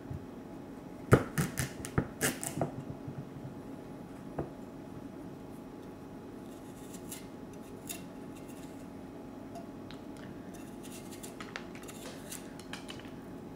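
A knife cutting the hard skin off a butternut squash: a quick run of sharp knocks about a second in, then quieter scraping strokes as the blade works along the skin.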